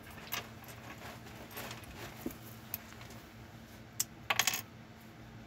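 Small plastic Lego pieces clicking and clattering as they are picked up from a wooden shelf and pressed together: scattered single clicks, then a quick run of clicks about four seconds in, the loudest.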